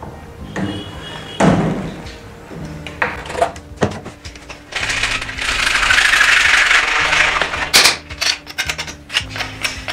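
Hand saw cutting through a plastic plumbing pipe: a few short strokes early on, then steady sawing for about three seconds past the middle, followed by a run of clicks and knocks as the cut piece is handled. Faint background music underneath.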